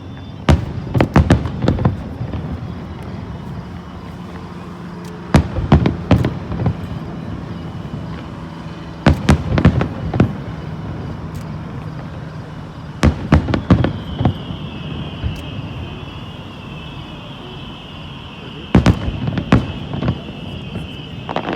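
Fireworks display: aerial shells bursting in five rapid volleys of sharp bangs, about every four seconds, with rumbling echo between the volleys. A high wavering whistle joins in the second half.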